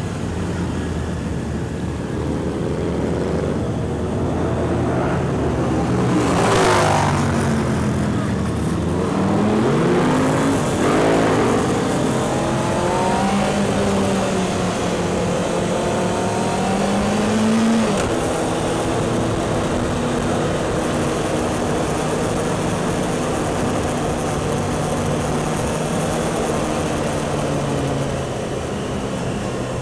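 Motorcycle engines in a large group ride, heard at a rider's helmet: the rider's own Honda CBR600F and the bikes around it running, with revs rising and falling. There is a loud burst of engine noise about seven seconds in, and the engine pitch climbs and then drops sharply around eighteen seconds in.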